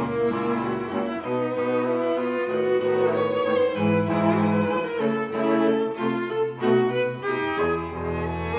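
Background music played on bowed strings: low sustained notes that change about every second under a held higher line.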